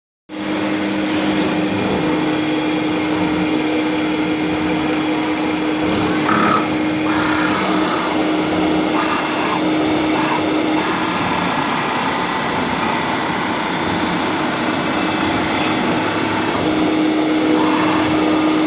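Hydraulic metal spinning lathe running: a steady machine hum with a constant tone, broken by a short high hiss about six to seven seconds in and again near nine seconds.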